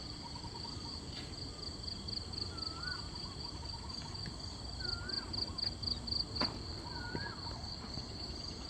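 Crickets trilling in a steady, pulsing night chorus, with three short rise-and-fall chirping calls from another animal and a couple of sharp clicks.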